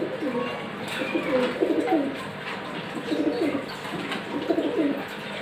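A bird giving low, pulsing cooing calls in a run of short phrases, with a few faint higher chirps among them.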